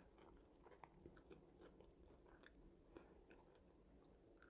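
Near silence with faint, scattered soft clicks of chewing and mouth sounds as homemade french fries are eaten close to the microphone.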